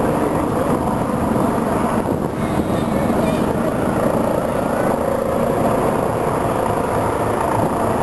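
Several helicopters flying over at a distance: a steady drone of rotors and engines.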